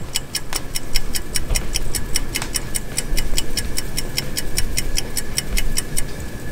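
Clock ticking rapidly and evenly, about five ticks a second, stopping near the end.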